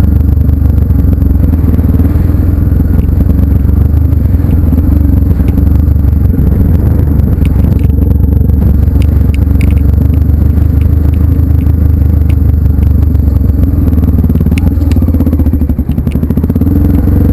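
Trail motorcycle engine running steadily, with scattered clicks and rattles over it.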